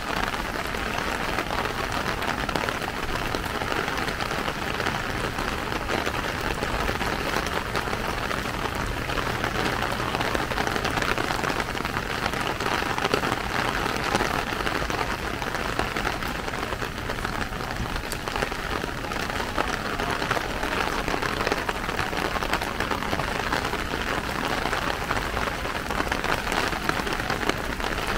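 Steady rain hitting a plastic umbrella overhead: a dense, even patter of drops that runs on without a break.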